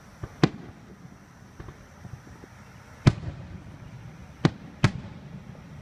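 Fireworks going off in a handful of sharp bangs: one about half a second in, a loud one about three seconds in, then two close together at four and a half to five seconds, with a few smaller pops between.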